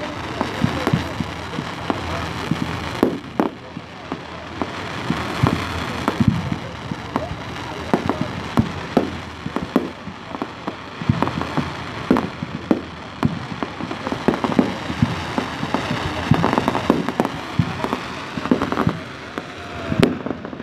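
Aerial display fireworks bursting overhead in a dense, irregular barrage of bangs and crackles.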